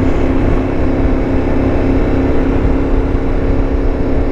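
Yamaha Ténéré 700's 689 cc parallel-twin engine running at a steady cruise on a gravel road, its pitch holding level over a low rumble.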